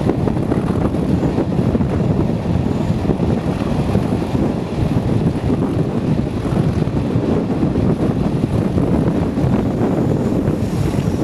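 Train hauled by Class 37 diesel locomotive 37405 running at speed, heard from an open coach window: a steady, loud rumble with rushing air and wind buffeting the microphone.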